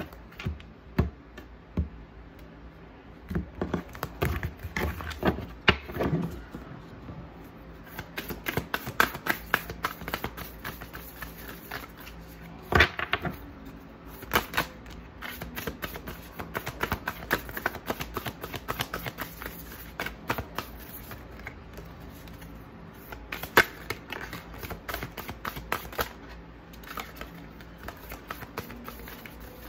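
A deck of oracle cards being shuffled by hand: long runs of rapid clicking and flicking as the cards slide and slap together, with a few sharper single snaps.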